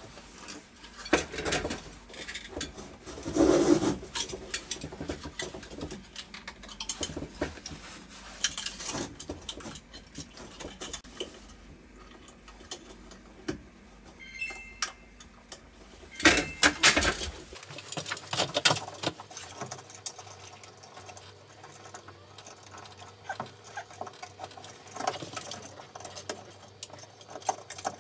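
Irregular rustling, scraping and small plastic clicks from hands handling a slim LED recessed light fixture, its junction box and wiring, with a couple of louder knocks and rattles about three and sixteen seconds in.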